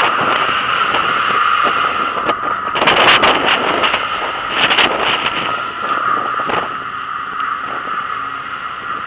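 Wind buffeting the microphone on a ship's open deck in rough seas, with waves breaking and spray washing over the deck. It swells louder about three seconds in and again around five seconds, over a steady hum.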